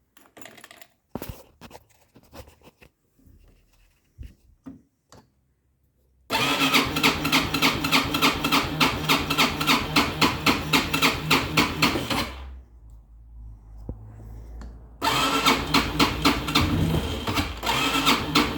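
Access 300 quad's engine being cranked on the electric starter on a cold, hard start. After a few faint clicks, about six seconds of loud, rapid, even cranking pulses stop. A few seconds of quieter low hum follow, and then the cranking starts again.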